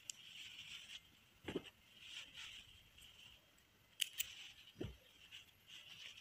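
Quiet handwork sounds of fabric and crochet thread being handled with a crochet hook and needle: a soft knock, then two sharp clicks close together about four seconds in, followed by a low thump.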